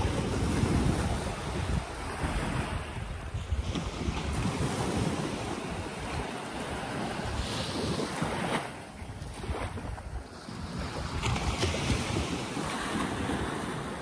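Small waves washing up onto a sandy beach and drawing back, the rush of water swelling and easing every few seconds. Wind buffets the microphone with a low, uneven rumble.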